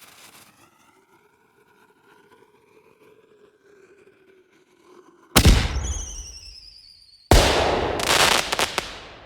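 Sound-effect explosions: a faint whistle sinking slowly in pitch, then a loud bang a little past halfway and a second bang about two seconds later, each dying away, the second with a brief crackle.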